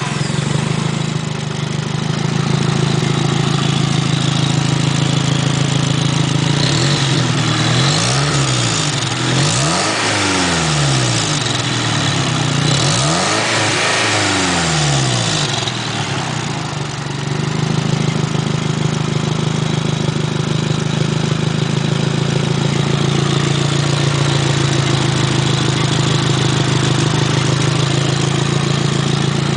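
Nissan SR20DET Blacktop turbocharged four-cylinder idling just after start-up, blipped a few times in the middle and then settling back to a steady idle. It is running with a leak at the downpipe.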